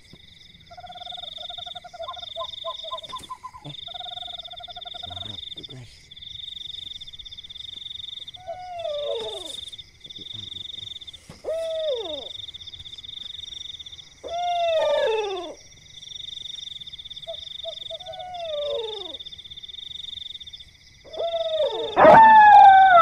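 A night chorus of insects trilling steadily, with frogs croaking in rapid pulses over the first few seconds. After that a cat meows about five times, each meow rising and then falling, and the last one near the end is much louder.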